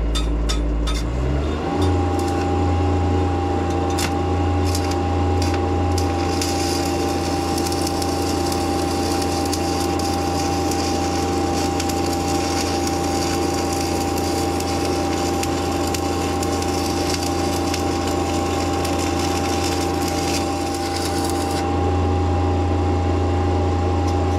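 Stick-welding arc crackling and hissing as a 3/32-inch Hobart 7018 rod burns at about 80 amps DC. The arc is struck about a second in and held steadily until it is broken off near the end. Underneath is the steady drone of the welding machine's engine, which rises in pitch as the arc takes load.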